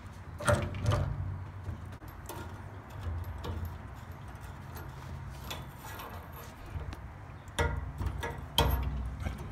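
Wrench and fingers working the brass tube fittings under a gas water heater's control valve, loosening them to remove the burner assembly: irregular metallic clicks, taps and clinks, with louder knocks near the start and near the end, over a low steady hum.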